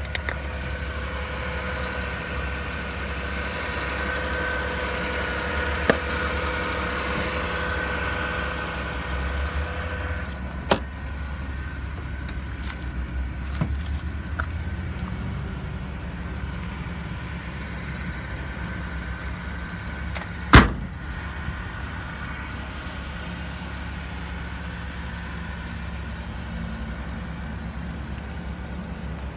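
Suzuki Carry kei truck's engine idling steadily, with a few light clicks and one sharp knock about two-thirds of the way through.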